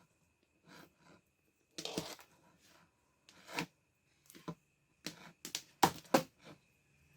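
Hard plastic parts of a steam vaporizer being handled: scattered clicks, taps and rustles, with a cluster of louder clicks between about five and six and a half seconds in.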